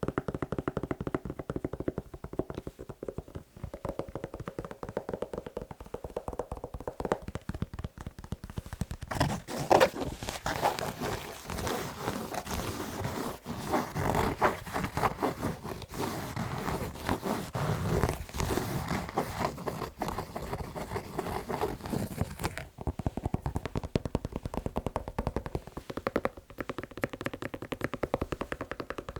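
Fast tapping on a shoe, a quick run of light knocks. About a third of the way in it turns to rough, fast scratching on the shoe, which stops about three quarters of the way through, leaving the tapping.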